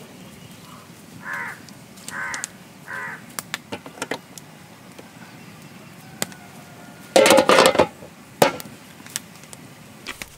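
Metal clatter of aluminium lids and idli plates knocking against large steamer pots, loudest a little past the middle, with a few lighter knocks around it. A bird calls three times about a second in.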